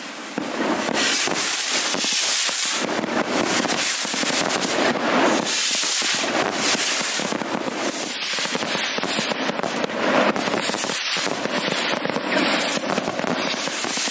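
A dense barrage of hand-launched stick rockets (voladores): rapid, overlapping bangs and crackle with no let-up.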